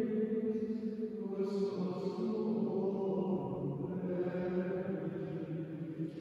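Male choir of Benedictine monks chanting the Vespers office together, with slow, held notes that step from one pitch to the next.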